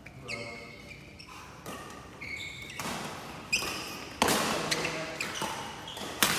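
Badminton rally: several sharp smacks of rackets hitting the shuttlecock, the loudest a little past halfway, with short squeaks of shoes on the court floor.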